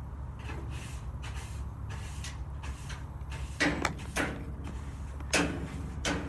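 A few short knocks and clatters of objects being handled, the clearest a little past halfway and near the end, over a steady low hum.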